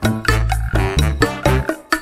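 Background music with a steady, quick percussive beat and bass.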